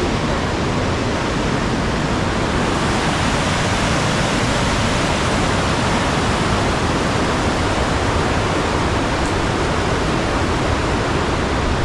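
Fast-flowing stream rushing steadily, a loud, unbroken wash of water noise.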